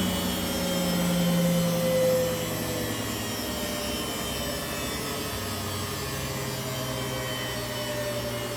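Samsung Diamond washing machine spinning its empty drum in a high-speed service-mode spin: a steady motor whine over a drum hum. About two seconds in the whine sags a little in pitch and the sound drops in level, then carries on steady.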